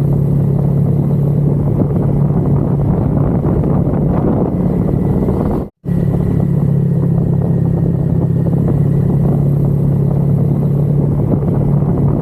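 Honda Vario scooter engine running steadily at cruising speed, a steady low hum under rushing road noise. The sound cuts out for a split second about halfway through.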